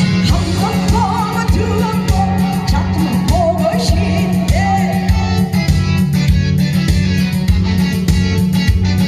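A singer's voice over a loud backing track with a steady drum beat and bass.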